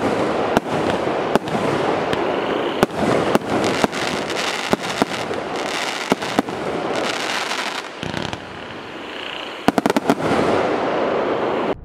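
A 100-shot, 0.8-inch-calibre consumer firework cake (a single-ignition battery) firing in quick succession: sharp shot reports over continuous crackle. It eases off about eight seconds in, then a quick cluster of loud bangs follows.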